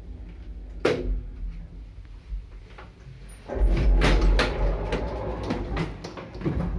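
1974 MZS passenger lift at a landing: a sharp clunk about a second in, then, from about three and a half seconds in, its car and landing doors sliding open with a loud rumble and several knocks.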